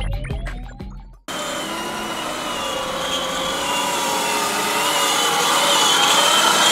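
Music fades out in the first second. Then the whine of a Fisher-Price Power Wheels Jeep Wrangler ride-on toy's electric drive motors and gearboxes as it drives across sand, several pitches wavering up and down.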